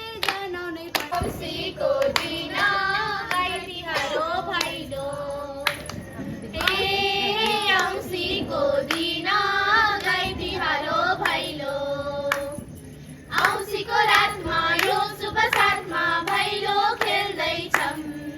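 Several voices singing together in a Deusi-Bhailo festival blessing song, with hand claps scattered through the singing.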